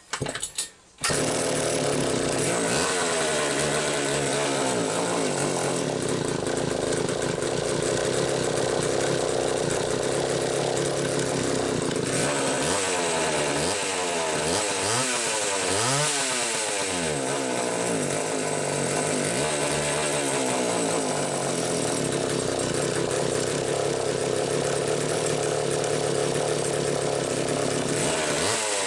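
Homelite 2100S two-stroke chainsaw catching about a second in and running on, with the throttle blipped several times midway so the pitch rises and falls. It is a first start of a long-stored saw that needed a prime to fire.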